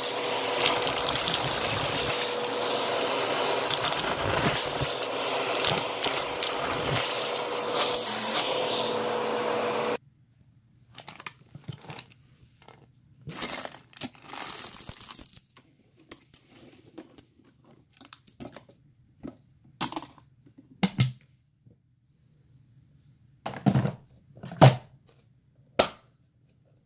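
An appliance motor runs with a steady whine for about ten seconds, then cuts off suddenly. After that, loose coins clink and clatter in scattered short bursts as they are handled.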